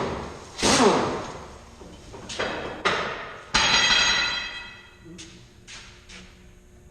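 A few separate metal clanks and strikes on disc harrow parts, the loudest about three and a half seconds in, leaving a ringing metallic tone that fades over about a second, then a few lighter knocks.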